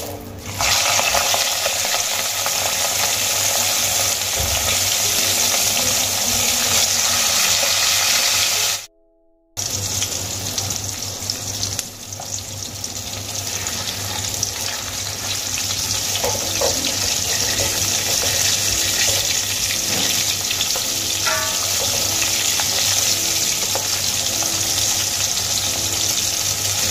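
Rohu fish pieces sizzling steadily as they shallow-fry in hot oil in a kadai. The sizzle starts sharply as the first piece goes into the oil and drops out briefly about nine seconds in.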